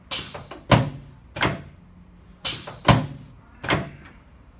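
Chiropractic adjusting table knocking under thrusts to the right sacroiliac joint: six sharp knocks in two groups of three, the groups about two and a half seconds apart.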